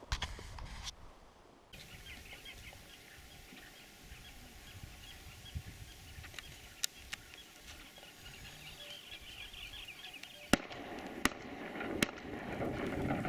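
Three shotgun shots about three-quarters of a second apart near the end, fired at flying ducks; the first is the loudest. Before them, faint high bird chatter, and two sharp cracks in the first second.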